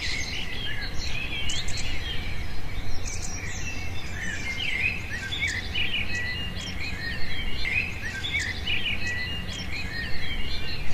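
Several birds chirping and calling in forest, with many short whistled notes that overlap, over a steady low rumble.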